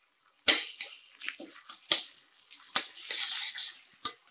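Steel spoon stirring chopped tomatoes and onions in a metal kadai: irregular clinks and scrapes of metal on metal, with wet squishing of the mixture and a longer scrape about three seconds in.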